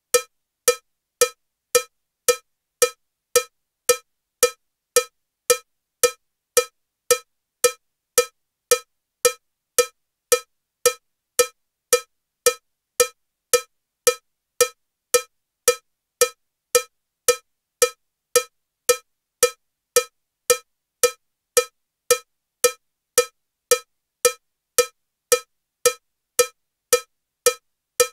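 Metronome ticking at 112 beats per minute with a cowbell sound: short, identical cowbell strikes, evenly spaced just under two a second.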